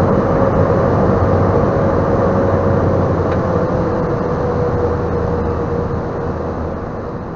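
Cessna 208B Grand Caravan's PT6 turboprop engine and propeller heard from inside the cockpit, a loud steady drone with one tone that sags slightly in pitch as the level slowly falls: power coming back during the landing and rollout.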